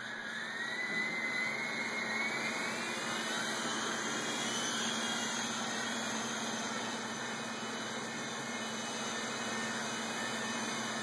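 Blade mCX2 coaxial micro RC helicopter's electric motors and rotors spinning up with a rising whine over the first few seconds, then a steady whir.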